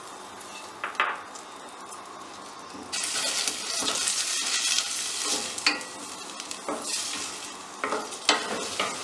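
Chopped onion frying in oil in a stainless steel pot. A faint hiss with a single knock gives way to loud sizzling about three seconds in, while a wooden spoon stirs and scrapes against the pot.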